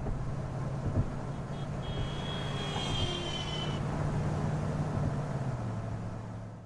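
Police transport van driving, heard from inside the rear cabin: a steady low engine drone with road noise. A thin high whine joins about two seconds in and lasts about two seconds, and the sound fades out at the end.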